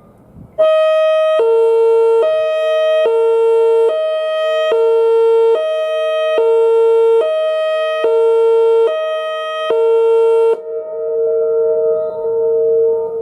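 Whelen WPS2906 electronic outdoor warning siren sounding its hi-lo tone: a loud high and low pitch taking turns a little faster than once a second, starting abruptly about half a second in. About ten seconds in the alternating stops, and the two tones linger more faintly and fade.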